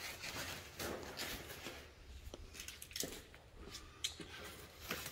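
Cardboard and foam packing wrap rustling and scraping as they are pulled back from a boxed faux wood beam, with a few sharp clicks.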